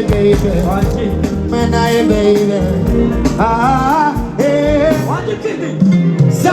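Live singing over loud amplified backing music through a PA during a sound check, the voice holding wavering notes with vibrato a few seconds in.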